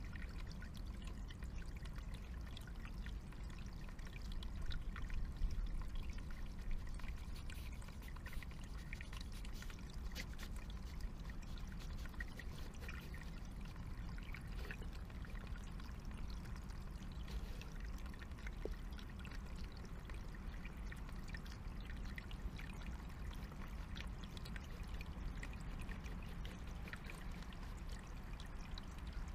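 Small forest stream trickling steadily over stones, with scattered faint clicks and rustles.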